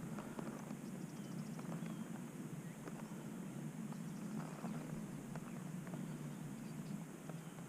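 A horse walking, its hooves making faint, irregular steps over a steady low background rumble.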